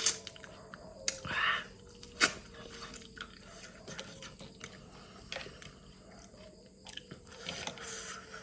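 A person chewing and biting mixed seafood close to the microphone, with scattered sharp clicks and a brief louder noisy sound about a second in.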